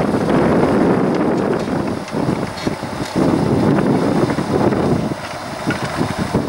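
John Deere tractor engine running under load as it pulls a disc harrow and seed drill across the field, mixed with gusty wind buffeting on the microphone that swells and drops away a couple of times.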